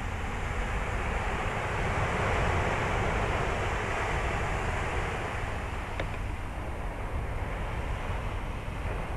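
Surf washing onto a beach: a wave swells up and slowly fades, over a steady low rumble of wind on the microphone.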